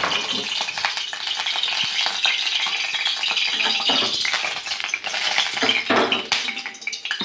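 Cooking oil heating in a kadai on a gas burner, sizzling steadily with a stream of small crackles.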